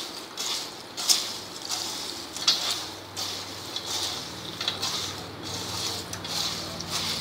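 A hand tossing crisp fried sago-pearl chivda in a stainless-steel bowl: dry rustling, rattling swishes of the pearls against the steel, about one a second. There are sharper clatters about a second in and again about two and a half seconds in.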